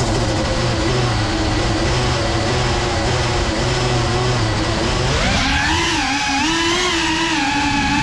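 FPV quadcopter's brushless motors whining at idle. About five seconds in they rev up and the pitch rises, then wavers up and down with the throttle as the drone lifts off.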